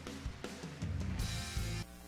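Instrumental intro music with a deep bass line, cut off abruptly near the end.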